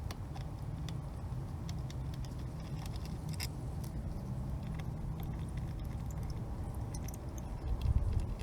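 Light, irregular metallic clicks and clinks of tools and parts being handled, over a low steady hum, with a louder knock near the end.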